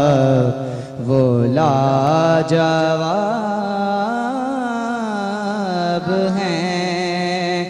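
A man singing a naat, an Urdu devotional poem, solo into a microphone, drawing out long ornamented held notes with a brief breath about a second in.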